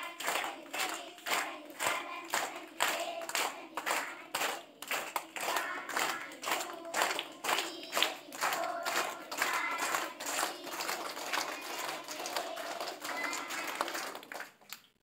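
A group of children singing together and clapping in time, about two claps a second; it cuts off suddenly near the end.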